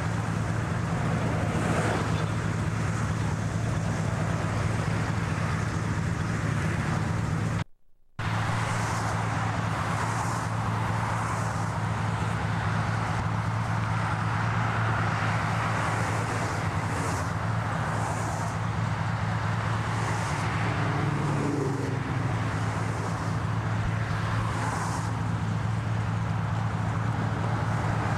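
Steady roar of passing highway traffic over a constant low hum, broken by a brief dropout about eight seconds in.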